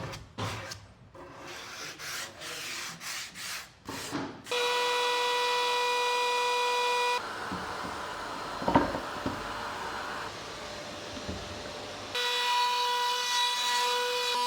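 Woodworking at the bench: a few seconds of rhythmic rubbing strokes on wood, about two a second, then a steady whine of a power tool. The whine breaks off for several seconds of other workshop noise with a single knock, then resumes.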